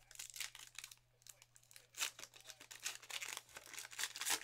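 A Topps Archives baseball card pack's wrapper crinkling and tearing as it is handled and ripped open. It comes in irregular crackly bursts, loudest about two seconds in and again near the end.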